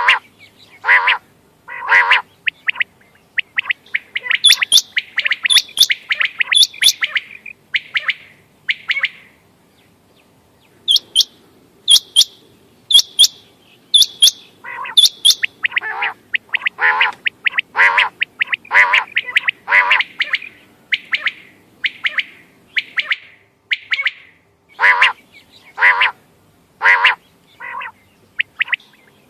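Quail calling over and over, short calls about once a second. High, thin notes alternate with lower, fuller calls, so more than one bird or call type is heard.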